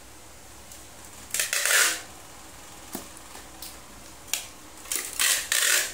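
Packing tape being pulled off a handheld tape dispenser onto a cardboard parcel: two long noisy pulls, about a second and a half in and again near the end, with a couple of sharp clicks in between.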